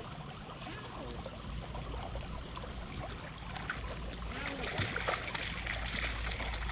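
River water running steadily, with a few faint clicks in the second half.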